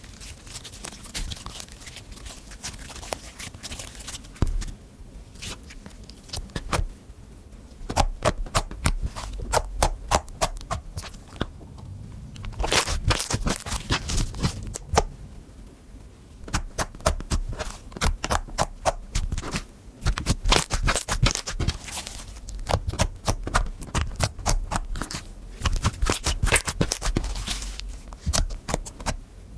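Hands squishing, stretching and poking soft slime, making rapid runs of sticky clicks and pops that come in clusters with short quieter gaps between.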